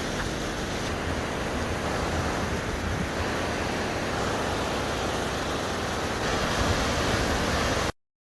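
Steady rushing roar of a waterfall close by, a little louder near the end, cutting off abruptly just before the end.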